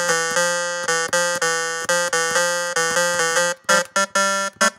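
Native Instruments Massive software synthesizer on its default init patch, with no preset loaded, played in evenly repeated notes about three a second that step up and down in pitch. Near the end the notes turn short and choppy. It is being played as a test that the plugin sounds inside GarageBand 10.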